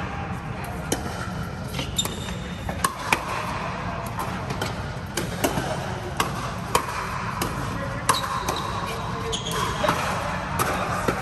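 Pickleball rallies: paddles hitting a hard plastic pickleball and the ball bouncing on the court, as sharp, irregular pocks, some from neighbouring courts. A steady low rumble and faint voices lie underneath.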